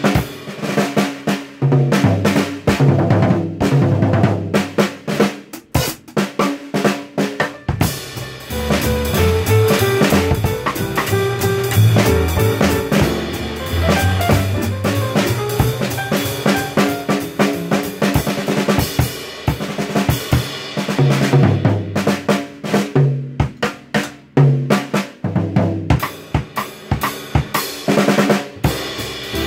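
Drum kit played in a jazz style: snare and bass drum hits, rimshots and fills under cymbals, in dense rhythms throughout. From about 8 to 20 seconds, pitched bass and melody notes from an accompanying track sound alongside the drums.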